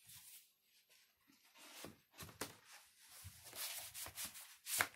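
Vinyl record jackets and a paper insert being handled: irregular rustling of paper and cardboard, with a few sharp taps, the loudest near the end.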